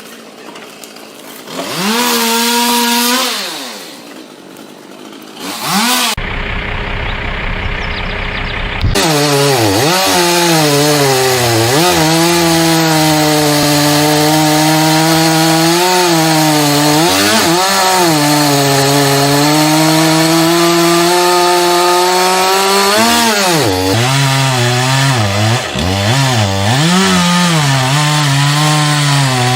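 Two-stroke chainsaw briefly revved up and back down, then, after a few seconds of a rougher noise, run at high revs through a long cut into wood. Its pitch sags and recovers several times as the chain bites, most noticeably near the end.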